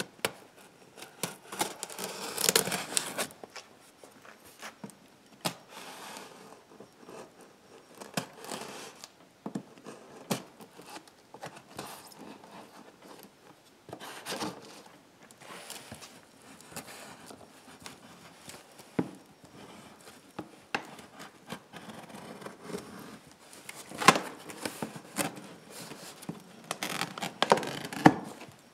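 A utility knife slitting packing tape on a cardboard box, with tape tearing and cardboard scraping and crinkling in irregular bursts and sharp clicks.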